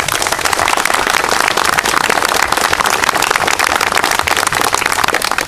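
A small crowd applauding, a steady patter of many hands clapping.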